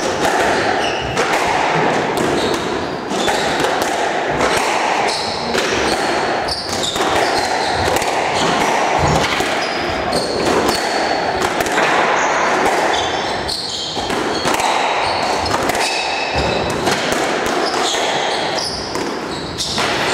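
Squash rally: the ball cracking off rackets and smacking against the court walls in quick irregular strikes, with short high squeaks of court shoes on the wooden floor, echoing in the enclosed court.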